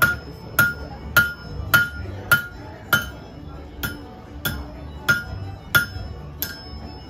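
Blacksmith's hand hammer striking metal held in tongs on an anvil: a steady run of about eleven ringing blows, roughly one every 0.6 seconds, with a short break a little past halfway.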